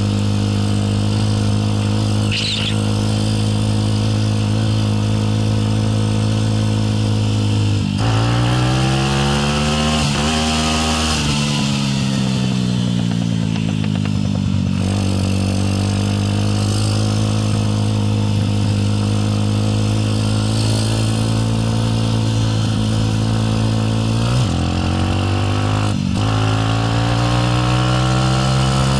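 Motorcycle engine running steadily under way. Its pitch dips and climbs again a few times and sags for a few seconds near the middle.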